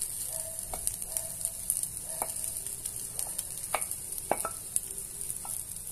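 Toasted rice and shredded beef rib sizzling in a hot black pan, a steady hiss. Several light clicks are heard as the meat is scraped off a plate into the pan.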